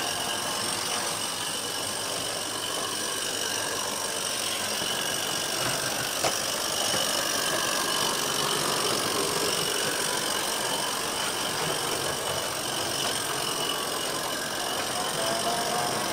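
16mm-scale live steam locomotive running with two four-wheel coaches: a steady hissing, mechanical running sound, with one sharp click about six seconds in.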